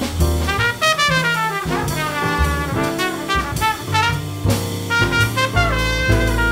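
Jazz quartet playing: a trumpet takes the lead with quick rising and falling runs over double bass, piano and drums.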